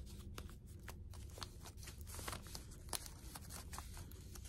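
Faint rustling and scattered light taps of paper being handled and pressed down as a sewing-pattern piece is glued in place.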